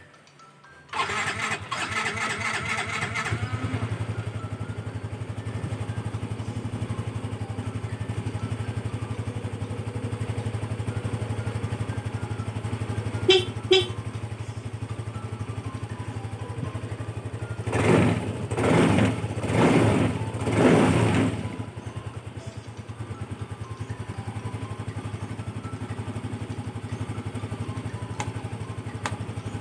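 Yamaha Mio i125 scooter's single-cylinder engine starting about a second in on its newly fitted battery, then idling steadily. Two short horn beeps come around the middle, followed by four quick throttle revs before it settles back to idle.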